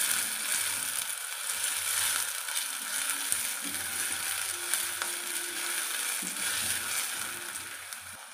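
Diced bell peppers sizzling in hot oil in a steel kadai, with the light scrapes and clicks of a spatula stirring them through the pan.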